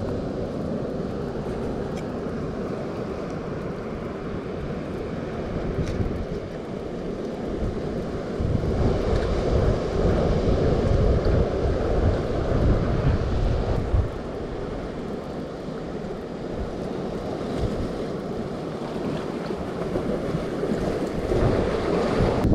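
Wind gusting on the microphone over the steady wash of sea surf, the gusts heaviest in the middle.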